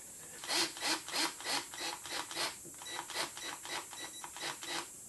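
Cordless drill-driver working at the hub of a small wooden model wheel, in a run of short even pulses, about three a second, lasting about four seconds.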